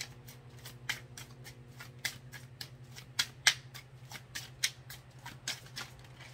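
Tarot cards being shuffled by hand: a run of short, crisp clicks and snaps at an irregular few per second, two of them sharper a little past the middle, over a steady low hum.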